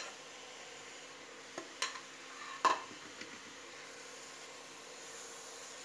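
A metal spoon knocks and scrapes against a pan as roasted khoya is scraped into a kadhai of frying grated carrots for gajar ka halwa, then a wooden spatula starts stirring. A few sharp clicks fall in the first three seconds, the loudest just before the three-second mark, over a faint steady hiss and hum.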